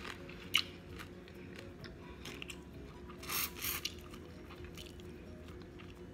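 Close-miked eating of boiled shrimp in sauce: soft chewing and wet lip smacks, with a sharp smack about half a second in and a short two-part slurp a little past halfway.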